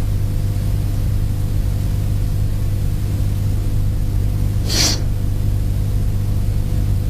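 Steady low electrical hum on the soundtrack. About five seconds in comes one short voiceless hiss, the German ich-sound [ç] spoken on its own.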